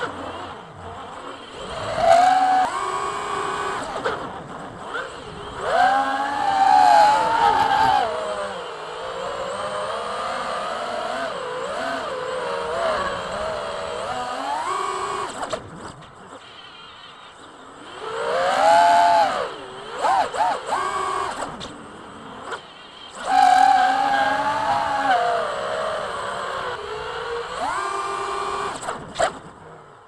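Drone's electric motors and propellers whining, the pitch rising and falling over and over as the throttle is opened and cut through rolls and flips. There are several loud surges.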